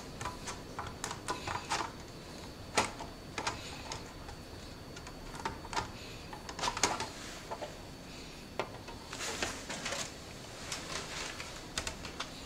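Scissors snipping through rigid LED strip boards: a run of irregular sharp clicks and crunches, with a longer scraping noise about nine seconds in.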